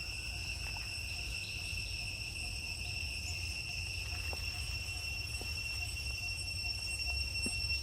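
Insects droning steadily, one constant high-pitched whine with overtones, over a low rumble, with a few faint clicks.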